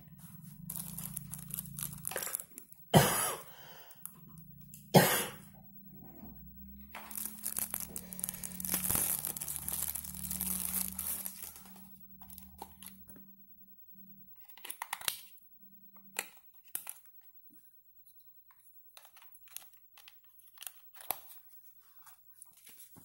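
Packaging being handled: plastic and cardboard rustling and tearing, with two sharp knocks about three and five seconds in and a long burst of crinkling in the middle, then a few light clicks.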